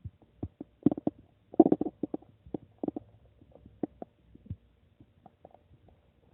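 A person's stomach gurgling: a quick, irregular run of short bubbly pops and gurgles, busiest in the first two seconds, then thinning out and fading toward the end.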